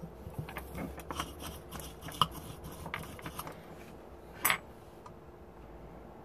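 Small tools and hard objects being picked up and set down on a wooden workbench: a string of light clicks and taps, one sharper click a little after two seconds in, and a short scrape about four and a half seconds in.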